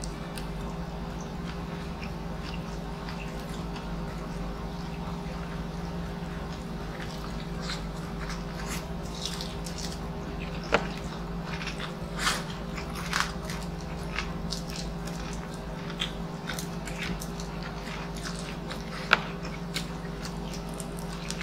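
Close-up eating sounds: chewing and biting into crispy pata (deep-fried pork knuckle), with sharp crunches of the fried skin now and then, the loudest about halfway through and near the end, over a steady low hum.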